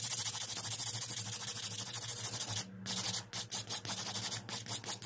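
A hand nail file rasping back and forth across acrylic nail extensions in quick strokes, shaping the sculpted nails. The filing stops briefly about two and a half seconds in, then carries on in slower, uneven strokes.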